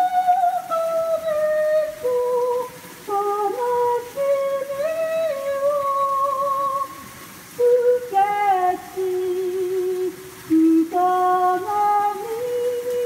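A woman singing solo into a handheld microphone: slow, held notes with a wavering vibrato, sung in several phrases with short pauses between them.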